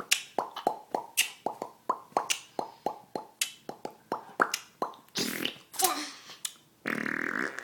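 Rapid series of sharp mouth pops, about four a second, made as a playful noise for a baby, giving way to a few breathy blowing sounds near the end.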